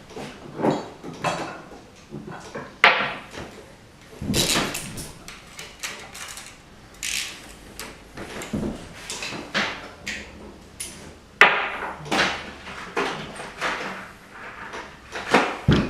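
Irregular metallic clanks, knocks and scrapes of hand tools and parts as the oil filter housing is unbolted from a Jaguar V12 engine, with a few sharper hits among them.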